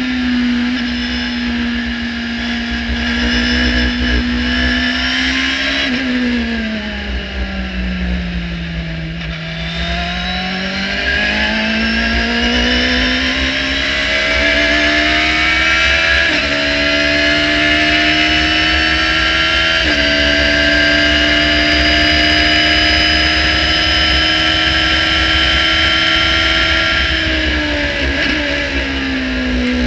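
Radical SR3-RSX race car engine heard from the open cockpit at racing speed on a wet track. The engine note drops as the car slows for a corner, then climbs steadily under hard acceleration and holds high before falling again under braking near the end.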